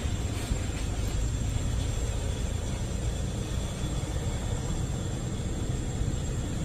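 A steady low rumble with no distinct strokes.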